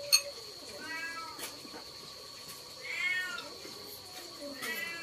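Pig-tailed macaque giving three short, high coo calls about two seconds apart, each rising then falling in pitch. A sharp knock just after the start is the loudest moment, and a faint steady high whine runs underneath.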